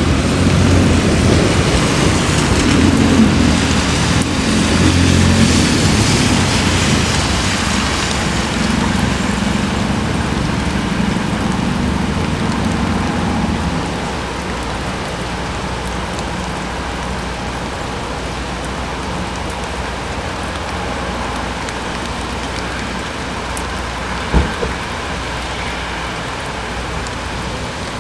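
Steady heavy rain falling on the ground, with a low rumble under it in the first half that eases off about halfway through. A single sharp knock comes near the end.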